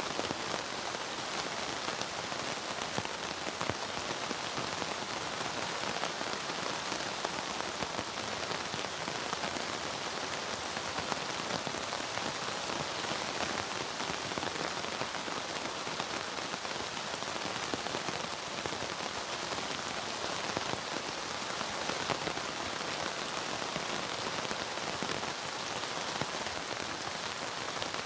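Steady rain falling, an even hiss made of countless small drop hits that holds constant without let-up.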